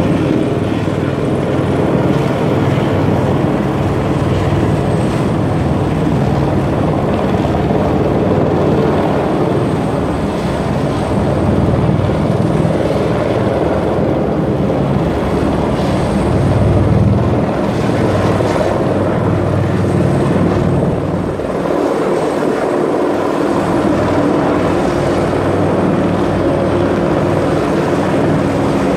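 Helicopter flying overhead: a steady beat of the rotor blades over engine noise, easing briefly a little after two-thirds of the way through.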